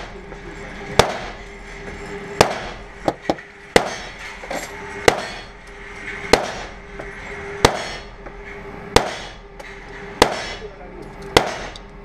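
Pistol shots echoing in an indoor range: nine single shots at an even pace, about one every second and a quarter, with a few lighter clicks around three seconds in, over a steady hum.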